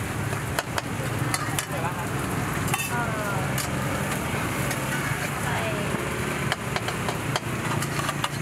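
Street-food stall sounds: utensils clicking and scraping as rice and curry are served into a foam takeaway box, over a steady low hum and hiss.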